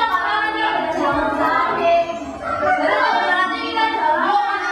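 Children's and women's voices singing a song together.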